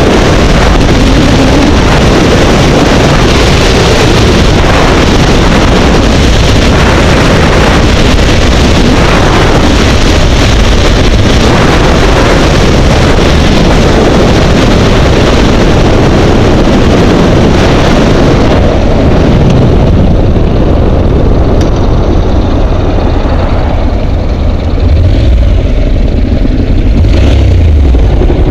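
Heavy wind noise over a helmet-mounted camera's microphone as a Honda NC700X parallel-twin motorcycle runs at highway speed, with the engine underneath. About two-thirds through the wind dies down as the bike slows, leaving the engine's lower note.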